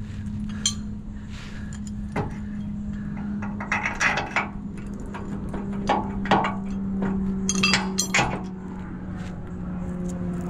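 Metal clinks and knocks of a new boat-trailer leaf spring and its bolt being worked into the spring hanger by hand, scattered and irregular, thickest in the middle and near the end, over a steady low hum.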